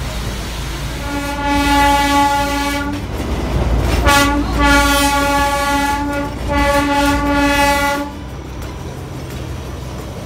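Darjeeling Himalayan Railway train's horn sounded in three long blasts of about two seconds each, over the steady rumble of the running train. After the third blast only the rumble and clatter of the moving train carry on.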